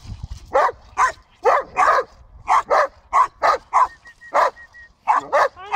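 White Swiss Shepherd barking repeatedly in short, sharp barks, about two a second, with a brief pause about two-thirds of the way through.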